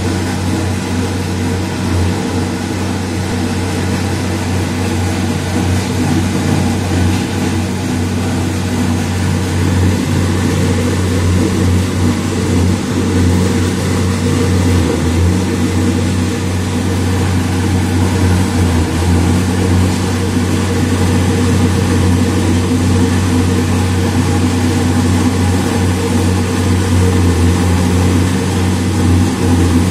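Loud, steady low drone of a heavy engine running at a constant speed, with several steady tones above the hum. It slowly grows a little louder.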